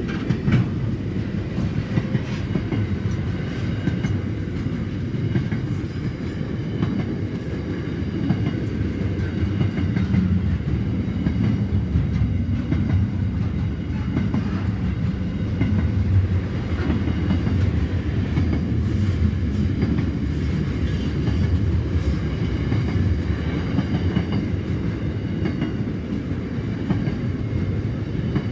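Container wagons of a long freight train rolling past on the track: a steady rumble of wheels on rail, with scattered clicks and clacks from the wheels.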